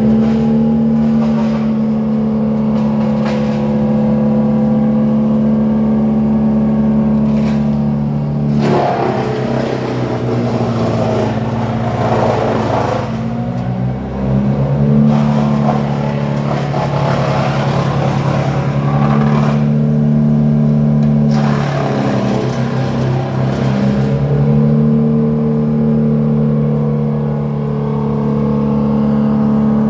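Chainsaw engine running at speed, its pitch dipping slightly with two long stretches of rougher, noisier sound about a third of the way in and again past the middle.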